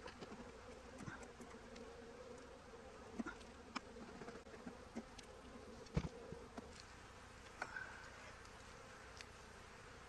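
Honey bees humming steadily from an open hive. Over the hum come a few sharp knocks and clicks from the wooden frames and hive tool being handled, the loudest about six seconds in.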